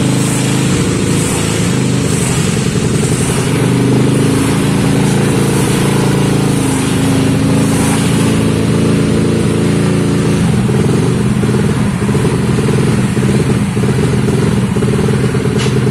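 Yamaha Aerox scooter's freshly reassembled single-cylinder engine running steadily, held on the throttle by hand, its speed shifting slightly and running a little rougher later on. The mechanic judges that its valves still leak slightly and need lapping again.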